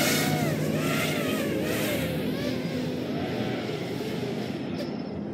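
FPV racing quadcopter motors whining, their pitch rising and falling with the throttle and growing fainter toward the end. One quad is flying on a nearly flat battery.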